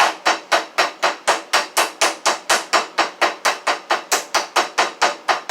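Flat face of a meat mallet pounding a raw chicken breast flat, a steady run of sharp blows at about four a second.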